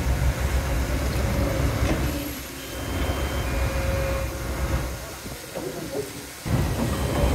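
Crawler bulldozer working soil, its diesel engine running under load with track clatter and faint squealing tones. The engine note eases off twice and comes back strongly about six and a half seconds in.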